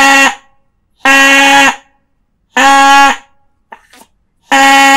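Homemade reed horn, a straw pipe with a plastic-sheet reed held by a rubber band and set in a cone, blown in short toots of one steady pitch, like a fairground horn. Four toots, each about two-thirds of a second long: one ending just after the start, then about a second in, two and a half seconds in, and near the end.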